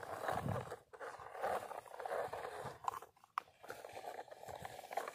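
Small plastic toy truck loaded with soil being pushed over sandy dirt: its wheels and body crunch and scrape on the grit in short, uneven stretches with brief pauses and a few sharp ticks.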